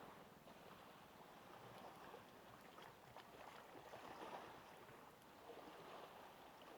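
Near silence: a faint wash of small waves on the shore, swelling and easing gently, with a few tiny clicks.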